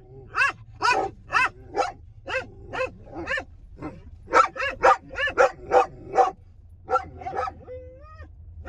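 A dog barking excitedly inside a car, in quick runs of short high barks, about two to three a second, with a rising whine near the end. A steady low car rumble runs underneath.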